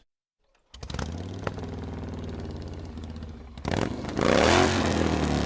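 Harley-Davidson V-twin motorcycle engine running steadily after a short silence, then revved up hard about four seconds in.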